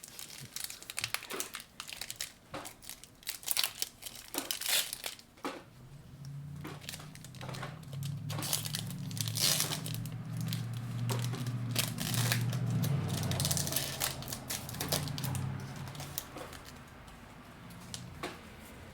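Foil booster-pack wrapper of a Pokémon trading card pack being torn open and crinkled, a run of sharp crackles and rips. A low steady hum sits underneath through the middle.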